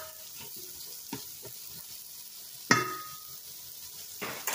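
Diced onions sizzling in butter in a rice cooker's inner pot, with a plastic rice paddle stirring and scraping against the pot. Several light knocks of the paddle on the pot, the loudest a sharp knock with a brief ring a little past halfway.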